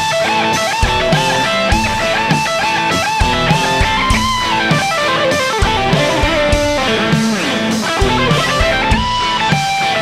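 Custom Shop Fender '50s Telecaster Thinline electric guitar playing a lead line with frequent string bends, over drums.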